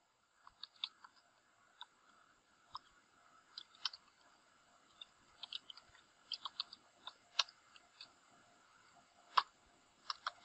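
Faint computer keyboard keystrokes: scattered single clicks at an uneven pace, with a quicker run of taps near the end.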